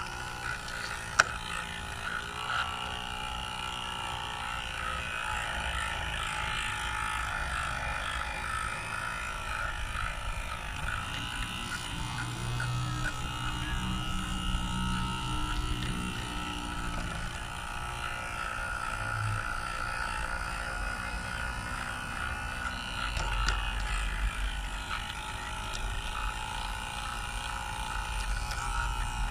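Garden-scale model locomotive running along its track: a steady mechanical whirr of its drive and wheels, with a sharp click about a second in.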